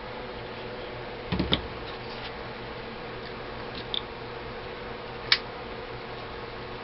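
Light clicks and knocks of AK-47 parts being handled during reassembly: a short cluster about a second and a half in, a faint tick near four seconds and one sharp click a little after five seconds, over a steady background hum.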